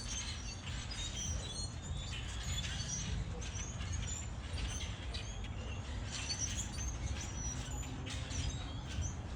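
A flock of birds chirping and calling, many short high chirps overlapping without a break, over a low steady rumble.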